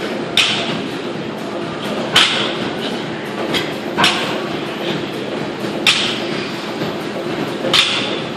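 Plates of an 80 kg barbell knocking on the gym floor as each sumo deadlift rep touches down: five sharp knocks about two seconds apart, over steady gym background noise.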